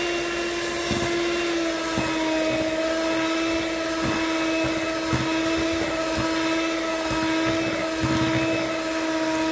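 Electric hand mixer running at a steady speed, its beaters mixing box-cake batter in a plastic bowl: an even motor whine with occasional low knocks.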